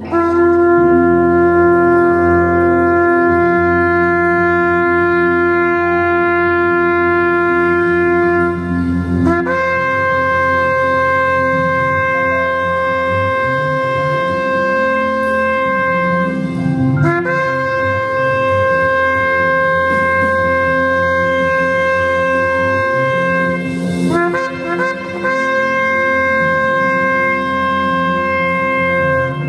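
Shofar (ram's-horn trumpet) sounding four long, steady blasts of about seven to eight seconds each, with short breaks between them. The first blast is lower in pitch and the other three a step higher. Quieter backing music plays underneath.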